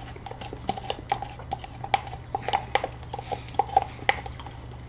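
Metal spoons scraping and clicking against clear plastic cups of soft ice-cream dessert: a quick, irregular run of small clicks and scrapes, busiest in the middle.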